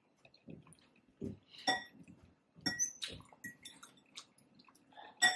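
Eating utensil clinking and scraping against a bowl. There are several short, ringing clinks, and the sharpest comes near the end.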